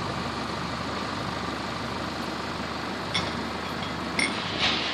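Engine of a moored canal work boat idling steadily, with a few short metallic clinks about three and four seconds in.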